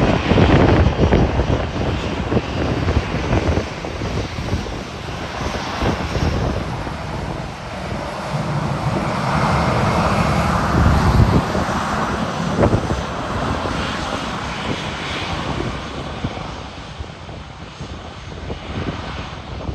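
Jet engines of a taxiing Lufthansa Airbus A320, a steady rushing hum that swells about halfway through and then eases off.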